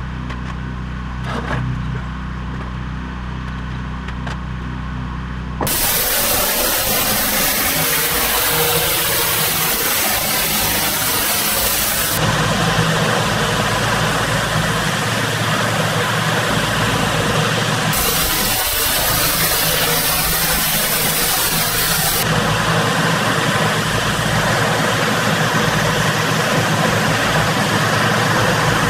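Pressure washer engine running steadily, then about six seconds in a loud hissing spray of high-pressure water starts over it. The spray's sound changes abruptly a few times.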